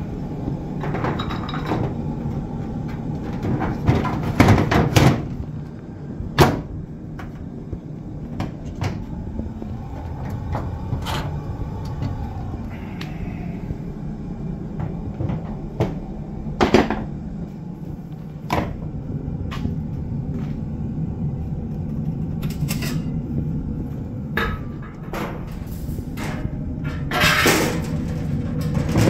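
Kerosene oil boiler's burner running with a steady low hum, firing again after being repaired. Several sharp knocks and clunks sound over it, the last cluster near the end as the sheet-metal front panel of its cabinet is handled.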